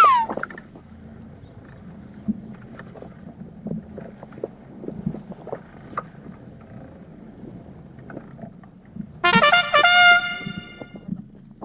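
Low steady hum of the boat with scattered light clicks, then about nine seconds in a loud, trumpet-like jingle sound effect plays for under two seconds. A falling whistle effect dies away at the very start.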